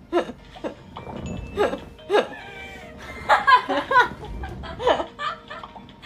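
Young women laughing in a string of short bursts.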